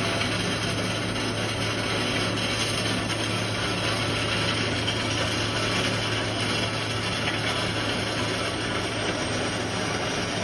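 Loud, steady mechanical noise with a constant low hum underneath, unchanging throughout; its source is unidentified.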